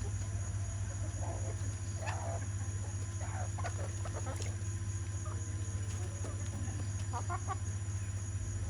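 Chickens clucking in short, scattered calls, busiest in the first half and again near the end. A steady low hum and a faint, steady high-pitched tone run underneath.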